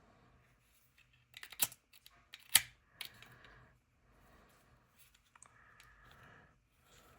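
Clicks and clacks of a Zippo Blue butane lighter being handled, a scatter of sharp metal-on-metal taps; the two loudest come about one and a half and two and a half seconds in.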